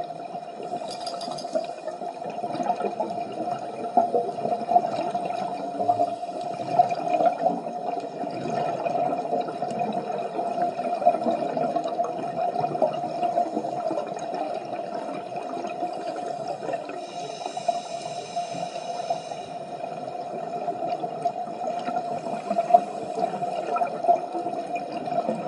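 Scuba divers' exhaled regulator bubbles gurgling and rushing continuously underwater, with a crackling wash, picked up through the camera's waterproof housing. A faint high whine comes and goes.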